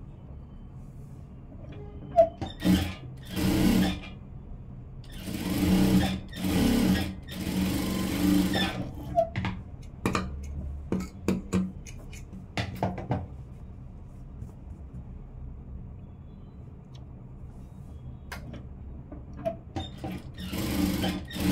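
JACK industrial sewing machine stitching in short stop-start runs of one to two seconds each, several in a row in the first half and another near the end. Between the runs come a few short sharp clicks.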